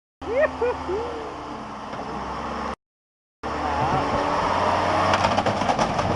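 Two short bursts of vehicle engine noise separated by a cut. The first is a steady low engine hum with a few short rising-and-falling calls over it. The second is louder engine running with a rapid run of sharp knocks and clatter building toward the end.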